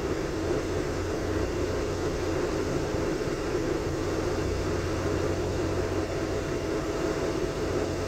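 Commuter train running at steady speed, heard inside the passenger car: a constant low rumble of wheels and running gear.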